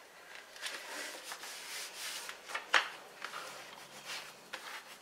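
Card stock being handled and a bone folder rubbed across it to press a freshly glued panel flat: soft, dry rubbing strokes with one sharp tap just past the middle.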